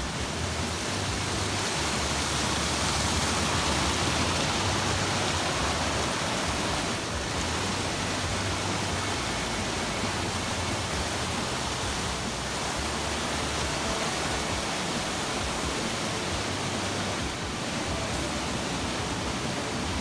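Steady rush of a small mountain stream cascading over rocks.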